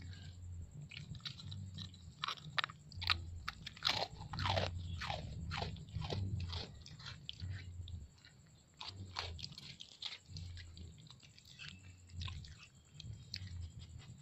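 Indian street dog biting and chewing crunchy cookies: a quick string of sharp crunches, a short lull about eight seconds in, then more scattered crunches.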